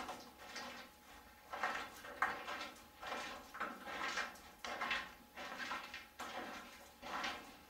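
Footsteps scuffing irregularly, about one or two a second.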